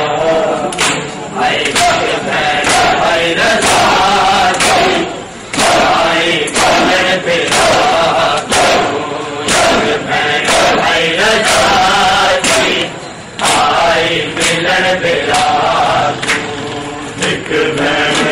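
Crowd of men chanting a noha together, with a steady beat of sharp slaps from hands striking bare chests in matam.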